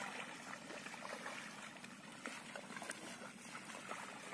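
Faint trickling and splashing of shallow water in a flooded rice paddy, with many small scattered ticks.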